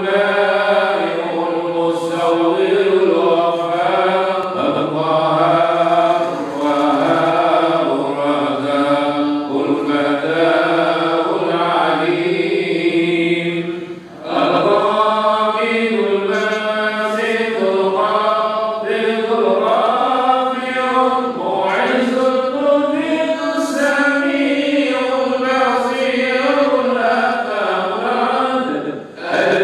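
A man's voice chanting Quranic recitation in Arabic through a microphone. He holds long, melodic notes and pauses briefly for breath about halfway through and again near the end.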